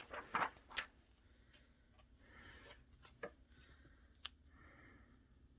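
Faint rustling of paper and stickers being handled on a craft table, with a few light clicks and taps, a cluster of them in the first second.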